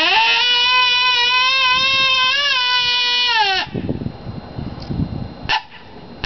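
Bison horn howler, a coyote predator call, blown in one long howl: it rises briefly, holds a steady pitch with slight wavers, then drops away after about three and a half seconds. A couple of seconds of low, uneven noise follow.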